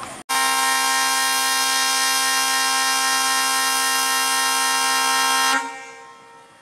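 Air horn of a WDM-3A diesel locomotive sounding one long steady blast of about five seconds. It starts suddenly and cuts off sharply, leaving a brief fading echo.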